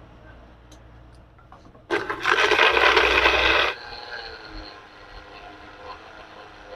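Electric mixer-grinder blending banana, milk and ice cubes into a banana shake. About two seconds in it gets much louder for just under two seconds, then drops back to a lower running noise.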